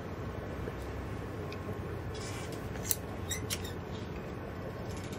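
A few faint clicks and squeaks from a caulking gun as more CT1 black sealant is run into the hatch frame, over a steady low background hum; the clicks come about two to three and a half seconds in.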